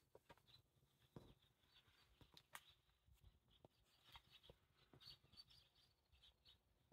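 Near silence: faint room tone with scattered small ticks and clicks.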